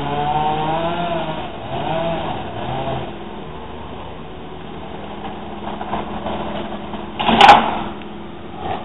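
Chainsaw running with its pitch wavering under load as it cuts a birch, then falling quiet about three seconds in. A few seconds later the felled birch comes down with a loud crash of trunk and branches hitting the ground, followed by a smaller crash near the end.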